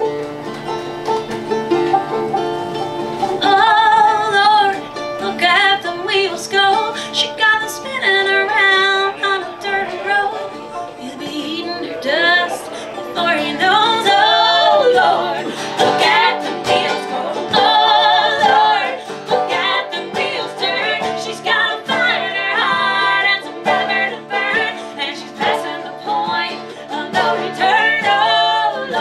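Music: a country-style song, a voice singing over plucked strings, the singing coming in a few seconds in.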